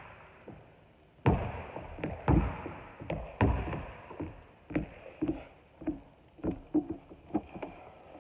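Basketball bounced on a hardwood gym floor, each bounce ringing around the hall, a few loud bounces about a second apart, then lighter, quicker knocks in the second half.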